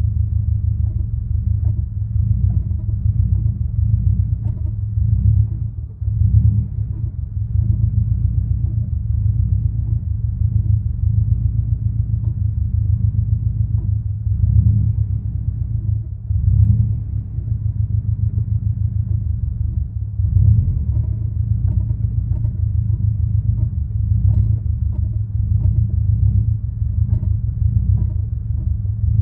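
Vehicle engine idling with a clutch rattle: a fast, uneven rattling over a steady low rumble, briefly dipping twice.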